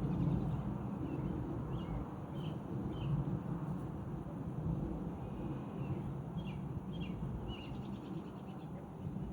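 A steady low outdoor rumble with short, high bird chirps in small groups, a few about two to three seconds in and more around six to eight seconds in.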